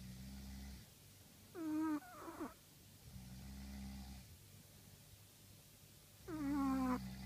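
Chihuahua snoring in its sleep: a low, rattling snore about every three seconds, with a louder squeaky whistle sliding down in pitch twice between and over the snores.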